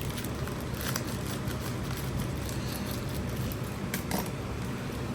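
A small mail package being opened by hand: scattered crinkles and clicks of packaging, with sharper handling sounds about one second in and about four seconds in, over a steady background hum.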